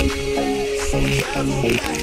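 Background music: an electronic pop track with a steady beat and sustained synth chords.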